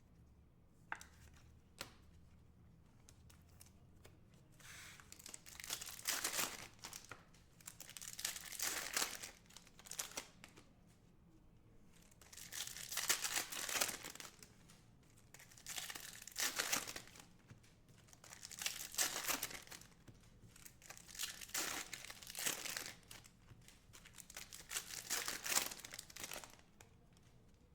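Foil wrappers of trading-card packs being torn open and crinkled by hand, in about seven rustling bursts a few seconds apart, after a couple of light clicks near the start.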